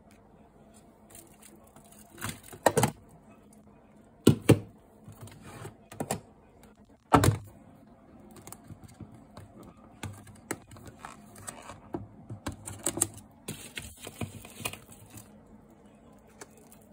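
Plastic food containers and bowls knocked and shifted on refrigerator shelves: a few sharp knocks in the first half, then a run of lighter clicks with a short rustle among them.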